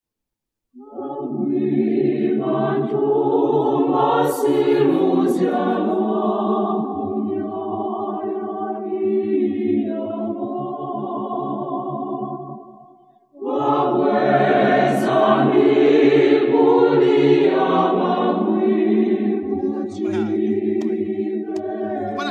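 A choir singing together, several voices in sustained harmony; the singing breaks off about halfway through and starts again half a second later.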